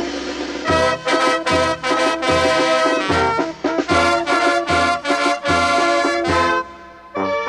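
Mexican youth brass band (banda) playing: trumpets and trombones hold chords over low bass notes on the beat, about two a second. A cymbal crash opens it, and the band drops out briefly near the end.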